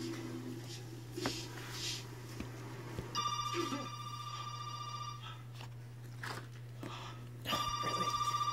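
Telephone ringing twice, each ring a trilling tone about two seconds long, with a steady low hum underneath.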